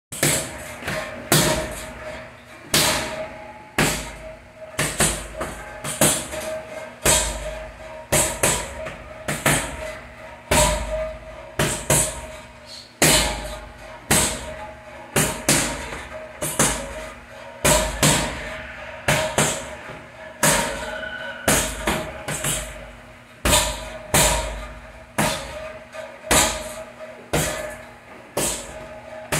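Gloved punches landing on a cobra reflex bag's padded head, in quick runs of two or three strikes with short gaps between, about one to two hits a second overall.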